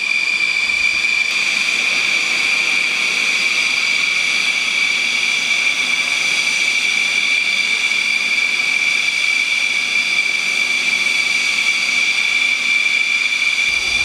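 Steady high-pitched whine of an aircraft engine, holding one pitch without change.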